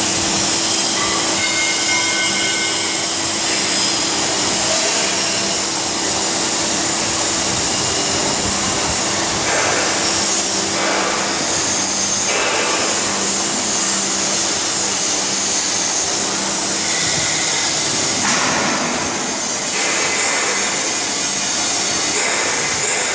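Steady machinery noise in a steel-fabrication workshop: a loud continuous hiss over a steady low hum, with a few louder hissing surges of a second or so.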